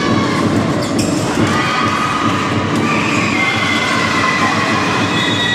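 Crowd of spectators in a sports hall cheering and shrieking, a loud steady roar with long high-pitched squeals running over it.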